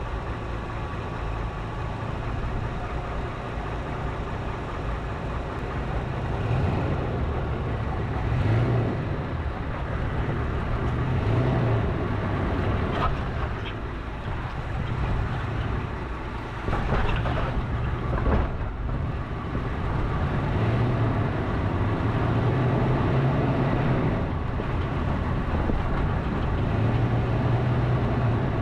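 Toyota FJ Cruiser's V6 engine running at low speed over rough rocky ground, a steady low drone that swells and eases. A few sharp clunks and rattles from the body and suspension come in the middle.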